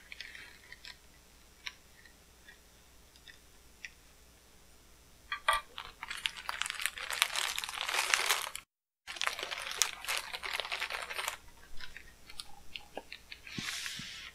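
Plastic air-cushion packing wrap crinkling and crackling as it is pulled and peeled off a taped tube. It starts with a few faint clicks, then a dense stretch of crinkling from about five seconds in to about eleven seconds, broken by a brief cut to silence, and one more short crinkle near the end.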